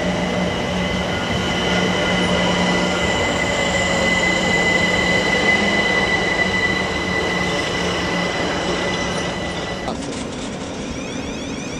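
London Overground Class 378 electric train running past and away, its wheels giving a steady high-pitched squeal over the running noise, with a lower hum that fades out by about eight seconds. The train sound cuts off abruptly about ten seconds in.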